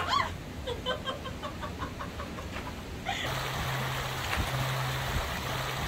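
A quick series of short high chirps, then, about three seconds in, the steady rush of a shallow mountain creek running over rocks, with a low steady hum under it.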